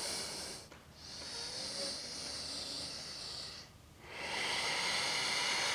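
A woman breathing audibly and deeply, long airy breaths with short pauses between them: one fading out just after the start, one lasting about two and a half seconds, and another starting about four seconds in.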